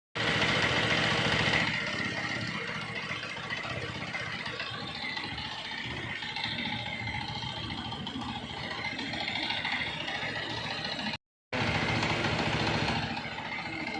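Freshly rebuilt Bajaj Pulsar 220F single-cylinder four-stroke engine running at idle with a mechanical rattle, louder for a moment near the start and again about three-quarters through. The sound drops out completely twice, at the very start and about 11 seconds in.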